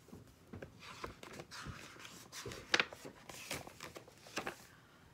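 Paper pages of a large picture book rustling and crackling as a page is turned, an irregular run of crisp crinkles that is loudest near the middle.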